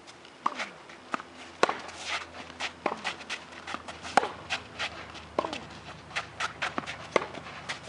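Tennis rally on a hard court: sharp racket strikes on the ball and ball bounces about every second, with quicker, lighter footsteps and shoe scuffs on the court between them.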